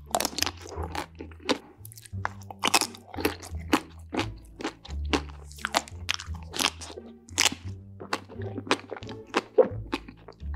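Close-miked crunchy bites and chewing of food, many sharp crunches in quick, irregular succession, over background music with a steady bass line.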